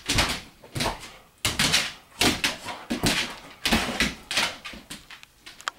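A springer spaniel's claws scrabbling and feet thumping on a tile floor as it lunges and spins after a laser dot: a run of quick scrapes and knocks, about one every three quarters of a second, fading near the end.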